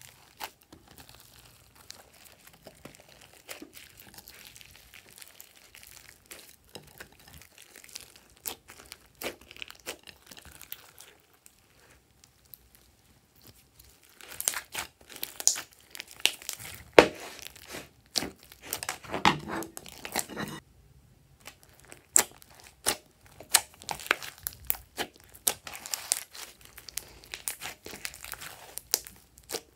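Hands squishing and kneading glossy slime mixed with clay and foam pieces: sticky crackling and popping clicks. It is faint at first and gets louder and busier from about halfway, with a short silent gap about two-thirds through.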